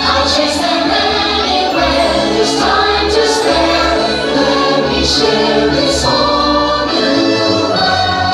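Choral show music with sustained sung chords, playing loudly over a fireworks show's sound system. Short sharp high-pitched hits come every second or two.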